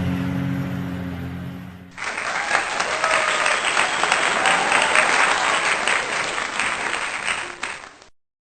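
Steady background music fades over the first two seconds. Then applause starts abruptly and runs for about six seconds before cutting off suddenly.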